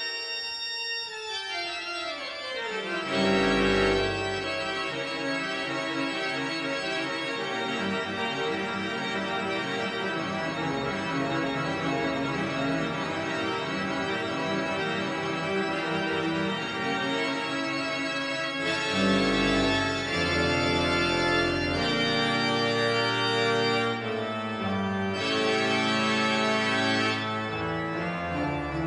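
Church pipe organ playing sustained full chords. A falling run leads into deep pedal bass notes about three seconds in, and the sound grows louder and fuller in the second half, with the pedal bass returning.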